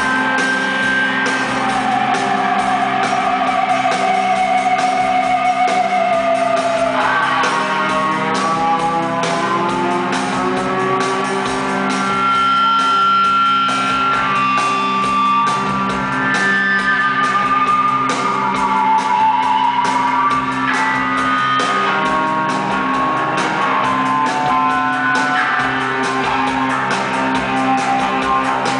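Rock band playing live in a large hall: electric guitars with long held and sliding notes over a steady low drone.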